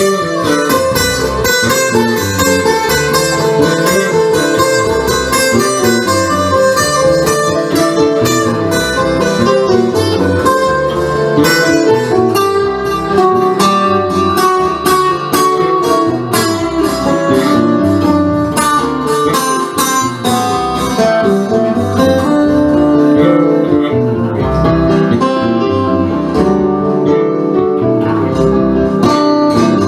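Instrumental break of a song: a guitar picking a busy run of plucked notes, with no singing.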